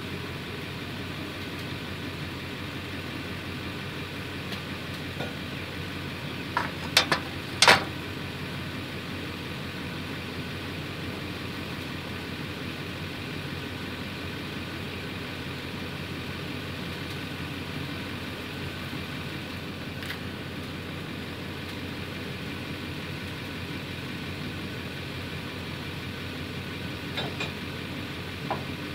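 A steady mechanical drone from something running, with a few sharp knocks about seven seconds in and some lighter knocks near the end.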